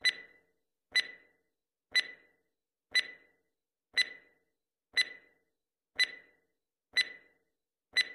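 Countdown-timer sound effect: a stopwatch ticking, with nine sharp ticks, one each second, timing a ten-second countdown.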